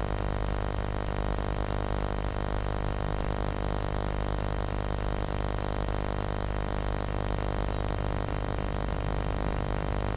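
Steady hum with hiss, unchanging throughout, with a few faint high bird chirps about seven to eight seconds in.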